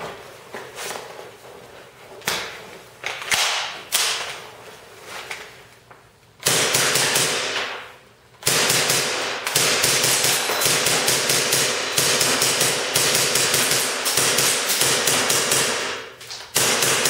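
KWA MP7A1 gas blowback airsoft submachine gun firing on semi-automatic: scattered single shots at first, then from about six seconds in fast, steady strings of shots, with a brief pause about two seconds later.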